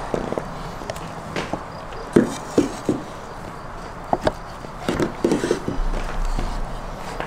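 Chef's knife cutting through soft roasted eggplant on a wooden cutting board, the blade knocking on the board at irregular intervals.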